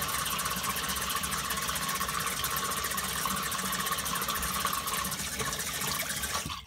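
Small electric hair trimmer running with a steady buzz while trimming around the moustache and chin, switched off abruptly at the end.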